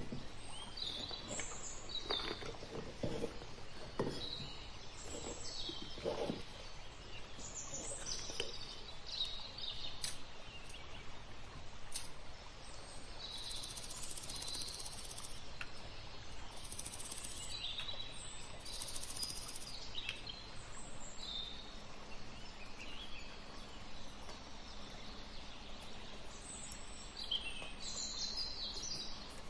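Small birds chirping and twittering over a steady background hiss, with a few brief high buzzes around the middle. Several soft knocks and scrapes come in the first few seconds.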